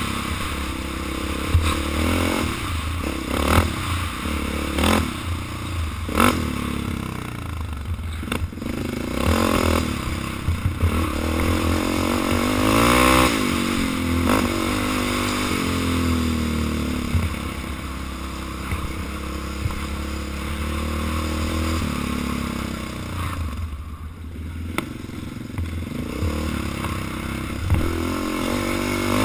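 ATV engine revving up and down with the throttle while riding a rough dirt trail, with sharp knocks and rattles as the machine goes over bumps.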